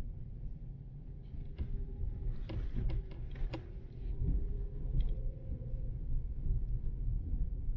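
A car driving through city streets: a steady low rumble of engine and road noise, with a few sharp clicks about halfway through.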